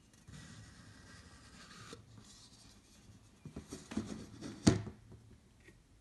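Wooden puzzle box being opened: a soft, dry rubbing as the wooden lid slides off, then a few light wooden knocks and clacks as the parts are handled and set down, the sharpest knock a little before the end.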